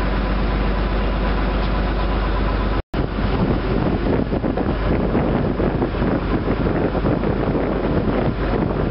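River launch's engine running steadily under way, a low drone, with wind blowing across the microphone. The sound breaks off for an instant about three seconds in, and after that the wind noise is gustier.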